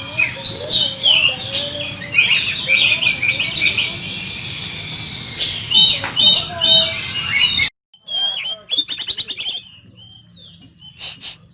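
Oriental magpie-robin (kacer) singing a loud, varied song of harsh notes and rapid chattering trills. About three-quarters of the way in the sound cuts off abruptly, then fainter, quicker chattering notes follow.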